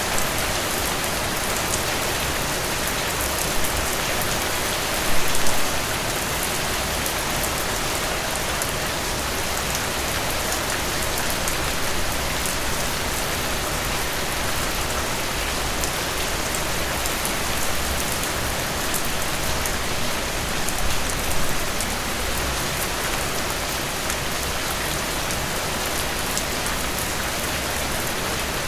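Heavy rain falling steadily, a dense even hiss of drops that briefly swells louder a few times, most strongly about five seconds in and again past the middle.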